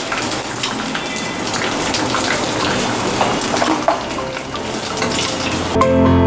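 Chicken strips frying in hot mustard oil in a wok, a steady sizzle with crackles and the scrape of a steel spatula as the pieces are stirred and lifted out. Near the end, background music with mallet-like notes comes in.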